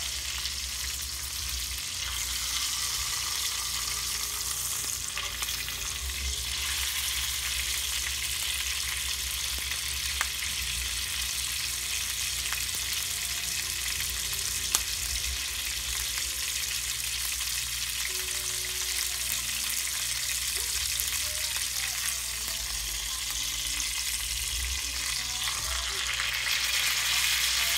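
Ribeye steak frying in hot oil in a cast-iron skillet: a steady sizzle, with two brief sharp clicks about ten and fifteen seconds in.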